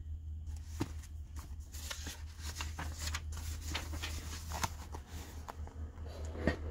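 Paper pages of a thick printed book being handled and turned: a run of rustles and crackles with a sharper click near the end, over a steady low hum.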